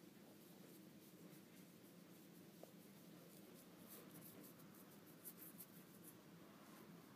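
Near silence: faint room hum with light scratchy rustling, a cluster of soft ticks about four to six seconds in.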